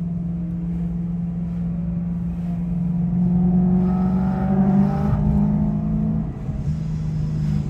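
Car engine and exhaust droning steadily while cruising, heard from inside the cabin; the pitch rises a little in the middle and eases off about six seconds in.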